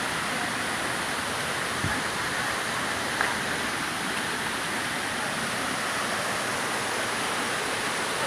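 Waterfall: falling water rushing steadily, with a faint click or two.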